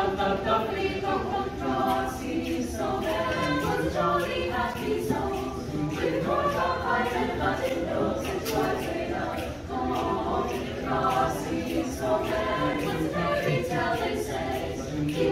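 High school show choir singing, girls' and boys' voices together in harmony.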